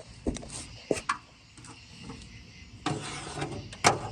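Scattered clicks and knocks with a short rustle about three seconds in and a sharp click near the end: handling noise from items being moved about while a work light is set up, with the engine still off.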